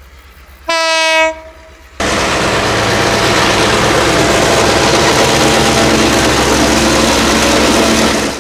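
Diesel locomotive hauling ballast wagons: its horn gives one short single-note blast about a second in. From about two seconds in comes the loud, steady noise of the locomotive passing close, its diesel engine running under the rumble of wheels on rail, until it cuts off sharply at the end.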